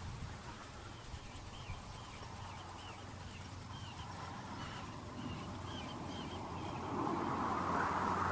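A bird calling in short repeated chirps, two or three a second, in a couple of runs, over a steady low hum. Near the end a louder rushing noise comes up.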